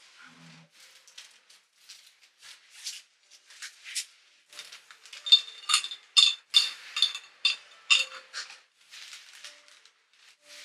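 Ice cubes clinking against a tall glass as iced coffee is stirred with a straw: a run of quick clinks, densest and loudest in the middle, some with a short glassy ring.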